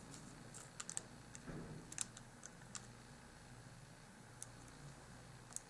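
Faint, scattered light clicks and taps of small handwork: a toothpick and fingernails pressing glued paper loops of a miniature bow, about eight irregular ticks over quiet room tone.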